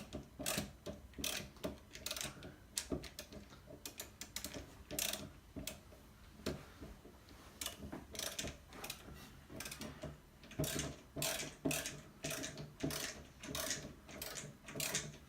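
Snap-On ratcheting screwdriver clicking in short runs as it is turned back and forth, driving a screw in until it gets tight.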